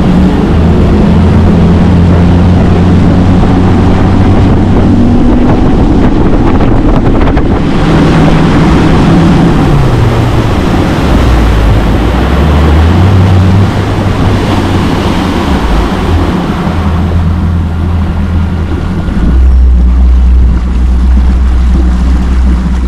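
Boat motor running under way, its pitch stepping down and back up several times, with heavy wind noise on the microphone and rushing water.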